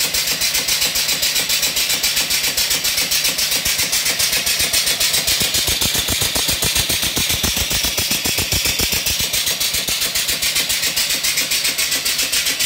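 Vertical single-cylinder steam engine running fast on live steam, its exhaust venting from an open pipe in rapid, even chuffs over a steady hiss, while it belt-drives an alternator.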